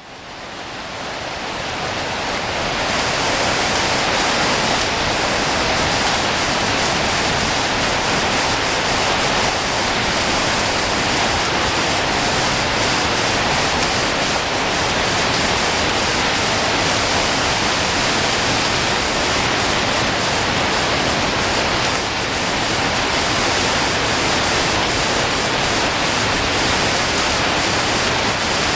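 Heavy hailstorm: large hailstones and rain pelting down in a dense, steady noise that builds over the first few seconds.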